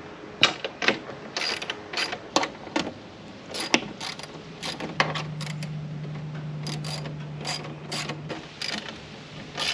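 Hand ratchet clicking in short irregular runs as the windshield frame bolts are tightened down. A low steady hum joins for about three seconds midway.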